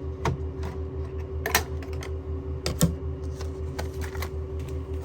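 Scattered plastic clicks and clatter as a digital wall clock's battery compartment is opened and rechargeable batteries are handled, the sharpest clicks about a second and a half in and near three seconds. A steady low hum runs underneath.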